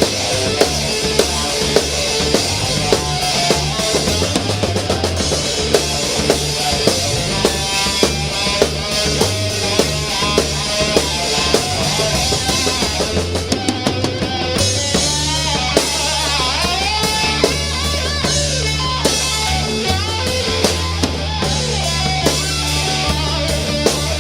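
Rock music: a band with drum kit and guitar over steady low notes, playing to an even beat of about a hit every 0.6 seconds, with a quick drum fill a little past halfway before the low notes change.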